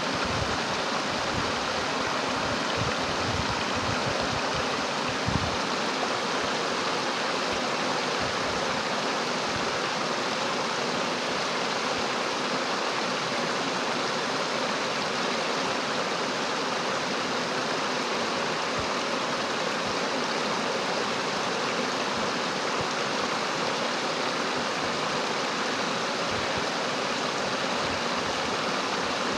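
Fast-flowing floodwater from heavy rain, a steady, even rush of water that goes on without a break. A few low bumps come in the first few seconds.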